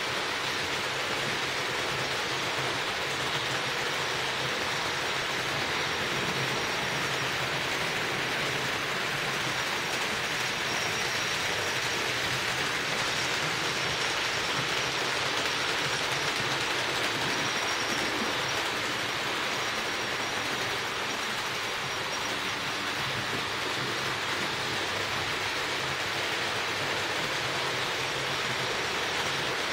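HO-scale model trains running on the layout: a steady whir of small electric motors and metal wheels rolling on the track, with a faint high whine that comes and goes.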